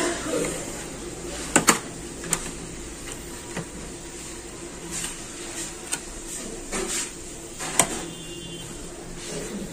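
A plastic pry tool worked around the edge of a MacBook Pro's aluminium bottom case, with about half a dozen sharp clicks as the case's clips give way, the loudest about one and a half seconds in and near the end.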